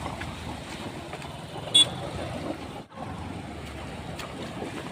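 Steady low rumble of a moving vehicle with wind on the microphone, broken about two seconds in by one short, loud, high-pitched chirp.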